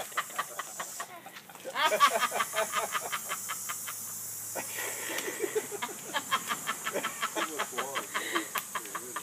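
Water hissing from a garden hose, over a fast, regular chirping tick. A toddler makes a few short babbling sounds, about two seconds in and near the end.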